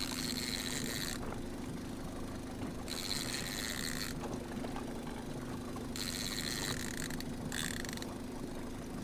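Boat motor running steadily at trolling speed, a low even hum. Over it, a higher whirring comes and goes about every couple of seconds.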